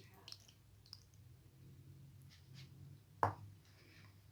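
Faint clicks of kitchen utensils and dishes being handled, with one sharper click about three seconds in.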